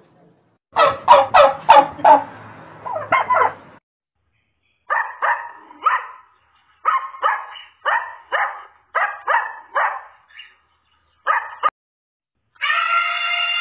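Turkey gobbling: a fast rattling run of calls about a second in, then short calls in quick groups of three or four, with brief silences between them.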